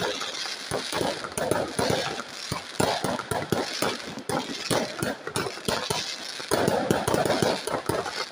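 Fireworks display: an irregular, rapid run of bangs and crackles from shells bursting in the sky, several a second.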